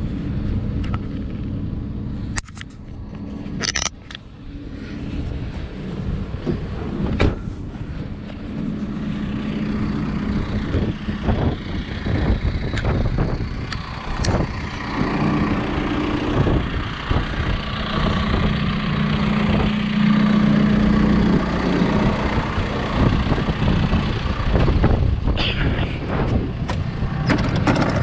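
John Deere 310SK backhoe's diesel engine idling steadily, growing louder, with a couple of sharp knocks a few seconds in.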